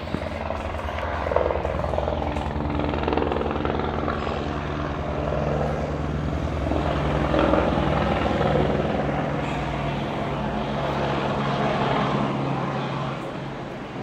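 Eurocopter AS350BA Squirrel helicopter flying low overhead: a steady rotor beat over turbine noise. It grows louder to a peak about halfway through and fades near the end.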